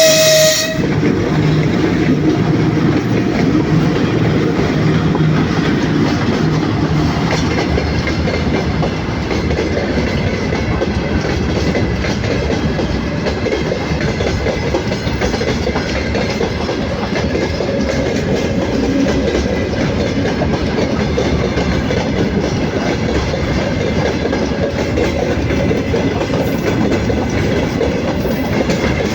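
Freight train behind a VL15 electric locomotive rolling past at close range: a steady rumble of wheels with rail clatter from the wagons. A short horn note sounds right at the start.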